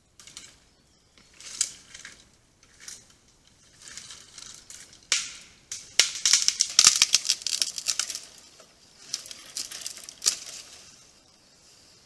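A bear rummaging at a bait barrel: irregular clattering, rattling and crunching clicks, coming in bursts and busiest and loudest a little past the middle.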